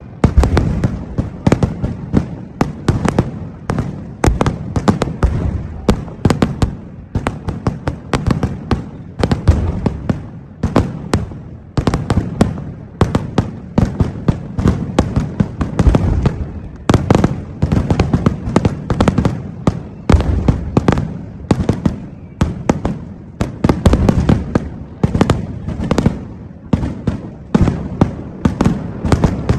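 A vedikettu firecracker display firing in a dense, unbroken barrage of loud bangs, several a second, with a low rumble carrying between them.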